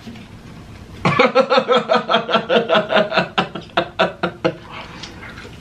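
A man laughing hard, a long run of quick pulses at about five a second, starting about a second in and dying away about four and a half seconds in.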